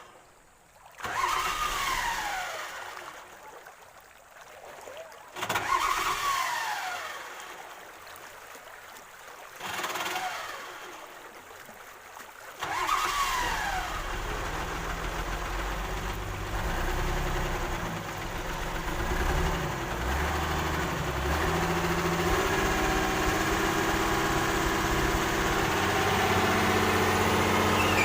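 Engine cranked in several short tries, each a brief whine falling in pitch. About halfway through, the engine catches and settles into steady running, growing a little louder toward the end.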